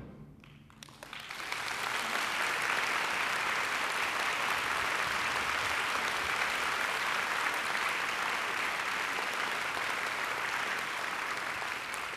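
Audience applauding: a few scattered claps at first, swelling within about a second into full, steady applause.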